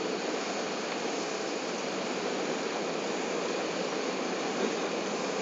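Steady rushing cabin noise inside an Airbus A380 on its approach to land, heard from a window seat over the wing.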